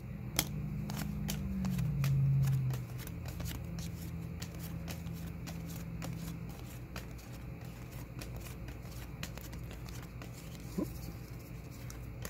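Paper trading cards being flipped one by one off a hand-held stack, their edges sliding and clicking against each other at an irregular pace. A low hum sits underneath; it swells about two seconds in and fades out partway through.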